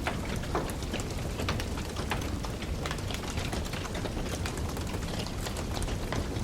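Fire burning in a fireplace, crackling with many small, sharp pops at an irregular pace over a steady low rush of flame.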